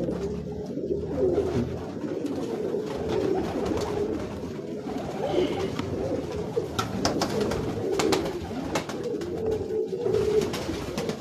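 A loft full of teddy pigeons cooing, many overlapping low coos going on without a break. A few short, sharp clicks are heard about seven and eight seconds in.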